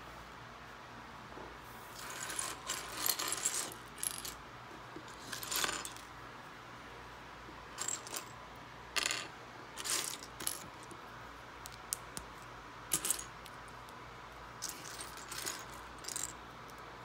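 Loose Lego plastic pieces clicking and clattering against each other and the wooden tabletop as a hand rummages through the pile, in irregular bursts of rattling separated by short pauses.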